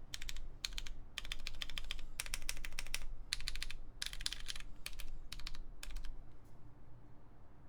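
Fast typing on an MM Studio Class65 V3 mechanical keyboard with lubed Cherry MX Purple switches, a polypropylene plate and Hammerworks CRP keycaps: quick runs of key clacks in bursts with short pauses, stopping about six seconds in.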